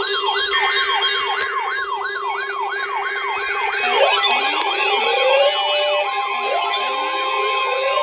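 Several electronic sirens sounding together: a fast yelp sweeping up and down about three times a second over steady tones, with slower rising wails joining in about four seconds in.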